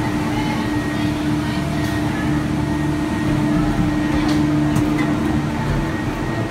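Gondola cable car station machinery running with a steady hum and a constant droning tone, heard from inside a gondola cabin during boarding.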